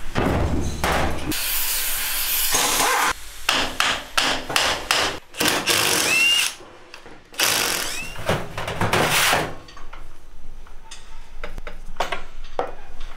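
A cordless impact driver running in several bursts, the longest about two seconds each, undoing the housing bolts of a BMW G30 transfer case during teardown. After about ten seconds it turns quieter, with scattered clinks of metal parts and tools on a steel bench.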